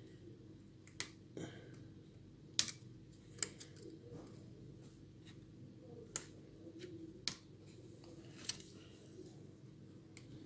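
Scattered small sharp clicks and taps, about seven spread over ten seconds: a prying tool working the LCD flex cable connectors loose from an opened iPhone 7 Plus.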